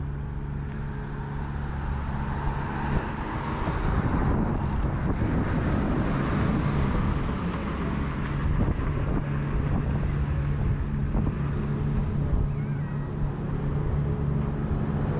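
Street traffic: a steady low engine hum from idling vehicles, with a vehicle passing from about three seconds in and growing louder for several seconds.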